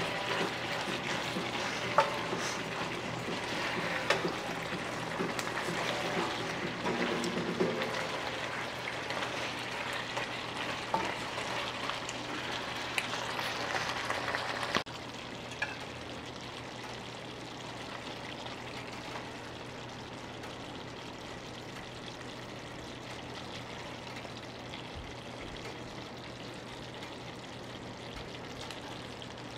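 Beef bulgogi sizzling in a nonstick frying pan with the burner just turned off, stirred with a spatula that gives a few light clicks against the pan. About halfway through, the sizzle drops suddenly to a quieter steady hiss.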